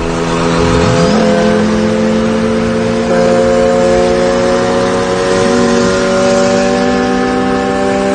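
Car engines running hard during a roll race, holding a steady high pitch, with one engine note rising sharply about a second in.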